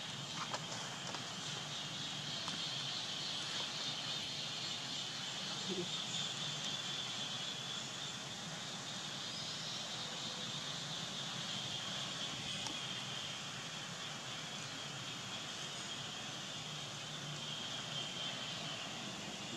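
Steady high-pitched insect drone, like a cicada or cricket chorus, running without a break.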